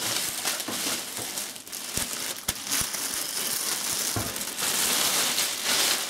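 Thin clear plastic bag crinkling and rustling as it is pulled off a PC case, with a few light knocks along the way.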